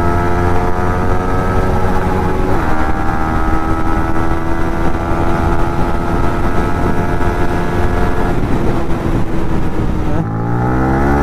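Motorcycle engine accelerating hard through the gears: the pitch climbs, drops at an upshift about two and a half seconds in, then climbs slowly for several seconds. Near the end it eases off and picks up again with rising pitch, over a steady rush of wind.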